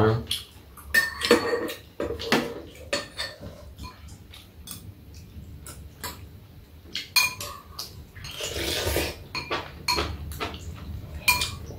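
Metal spoons and chopsticks clinking and scraping against ceramic bowls as two people eat soup, in many short irregular clicks. About nine seconds in comes a short noisy sound lasting about a second.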